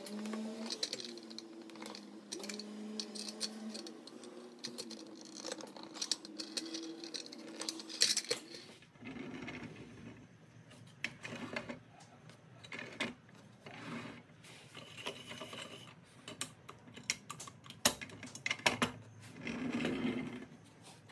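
Clicks and knocks of toy wheel axles being fitted into a Tonka cement mixer's chassis, then the toy truck rolled back and forth across a workbench, its small wheels rumbling and rattling. The loudest clicks come about eight seconds in and near the end of the rolling.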